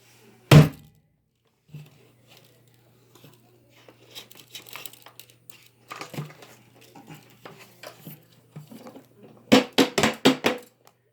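Handling noises: one sharp thump about half a second in, light crinkling and rustling through the middle, then a quick run of knocks and clatters near the end, over a faint steady low hum.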